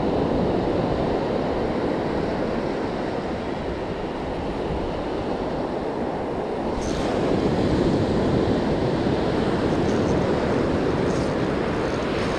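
Ocean surf washing onto a sandy beach, a steady wash of noise, with wind buffeting the microphone.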